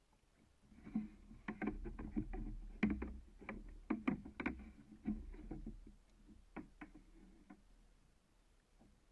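Irregular knocks and water slaps against a plastic sit-on-top kayak as an angler reels in a hooked fish. They come thickest from about a second in to six seconds in, then thin out to a few knocks before fading.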